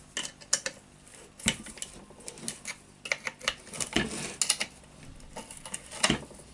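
Irregular metal clicks and clinks of a hand tool working screws loose from a demolition hammer's housing, with a few louder knocks about one and a half, four and six seconds in.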